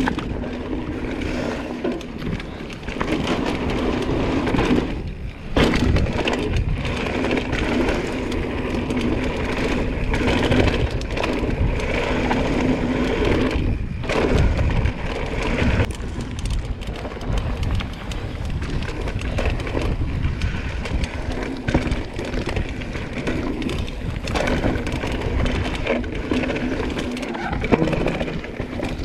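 Propain Tyee enduro mountain bike being ridden fast down a dry dirt trail: a steady rush of tyres on dirt, broken by frequent cracks and clatters as the bike hits roots and rocks.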